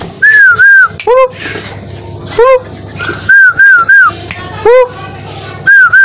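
A person calling an owl by mouth: short rising hoot-like calls alternate with quick runs of two or three high whistled notes, repeated several times.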